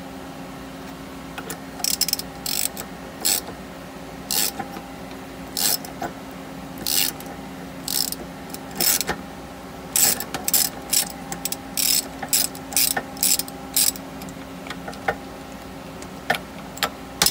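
Tie rod puller's screw being turned with a hand tool to press a steering shaft bushing into its housing, giving a series of short ratcheting clicks that start about a second and a half in and come faster through the middle. A steady low hum runs underneath.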